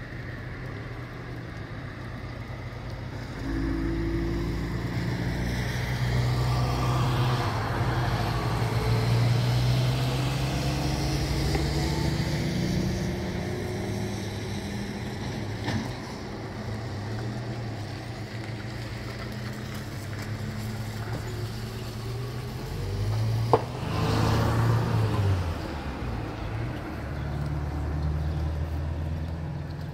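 A road vehicle's engine runs and rises in pitch for several seconds, then settles. There is a single sharp knock about two-thirds of the way through, and the engine sound comes back near the end.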